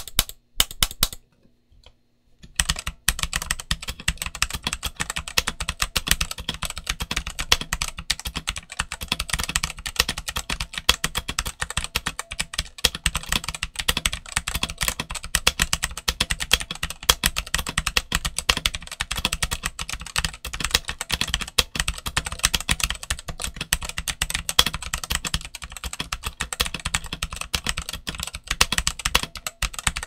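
Typing on a stock Redragon K530 Pro mechanical keyboard with Redragon Brown tactile switches and double-shot ABS OEM-profile keycaps. A few separate keystrokes come first, then a short pause, then fast, continuous typing.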